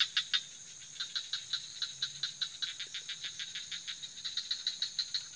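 Night insects, cricket-like, chirping in a rapid even pulse of about six or seven high chirps a second over a steady high-pitched insect drone, with a faint low hum underneath.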